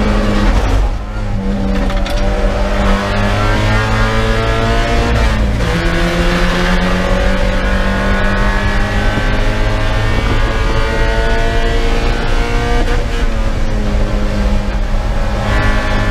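Spec Miata's four-cylinder race engine heard from inside the cockpit. It eases off under braking about a second in, then pulls hard with rising pitch, dropping in pitch at upshifts about five and a half seconds in and again near thirteen seconds.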